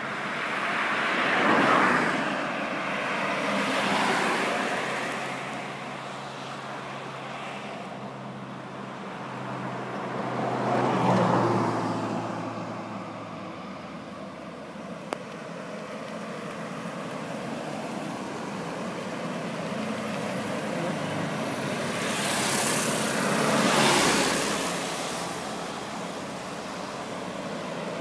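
A line of road vehicles, cars, pickup trucks and coach buses, driving past close by one after another. About five passes swell and fade in turn, over a steady traffic hum.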